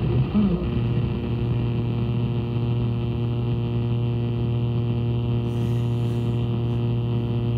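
Receiver audio from an SDRplay RSP2 tuned around 440 to 460 kHz: a steady electrical buzz with a hiss behind it, interference rather than a station.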